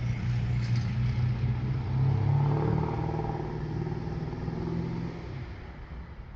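A motor vehicle engine passing by, its pitch rising slightly as it goes, then fading away about five seconds in, over a steady background noise.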